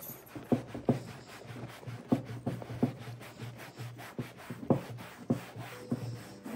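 Scrubbing: a surface rubbed hard by hand in quick, irregular back-and-forth strokes.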